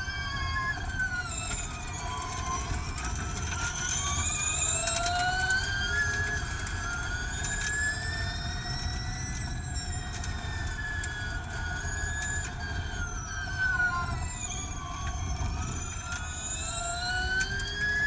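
Formula E Gen2 race car's electric drivetrain whining at racing speed, its pitch rising and falling several times as the car accelerates and slows through corners, over low tyre and road rumble.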